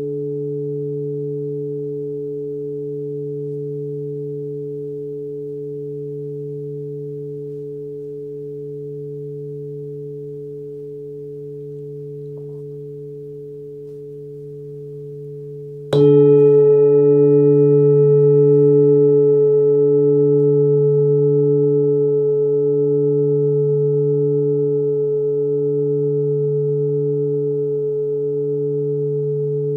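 26 cm forged Sun Moon singing bowl, tuned to D at 146 Hz, ringing and slowly fading. About halfway through it is struck again: a sharp strike, then a fuller, brighter ring with a slow pulsing wobble.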